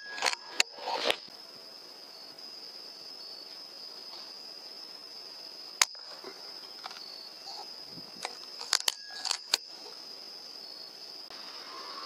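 Crickets chirring in a steady high trill, broken by sharp clicks: a quick cluster in the first second, one loud single click about six seconds in, and several more around nine seconds.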